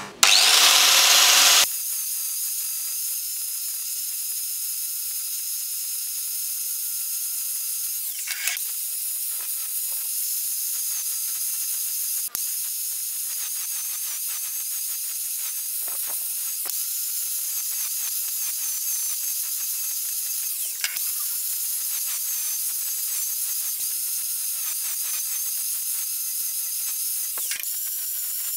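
Angle grinder with an abrasive disc grinding a weld on a steel part, a steady high hiss with a faint motor whine. It is louder for the first second or so and eases off briefly a few times as the disc is lifted or shifted.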